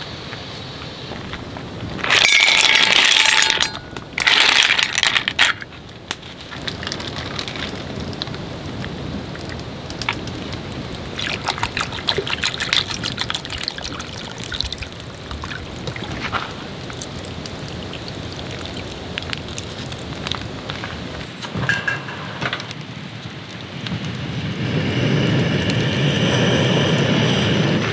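Camp cooking: two loud bursts of hissing about two and four seconds in, then food crackling and sizzling in a cast-iron pan as water is poured in. Near the end a gas camping stove burner is lit and runs with a steady rushing hiss.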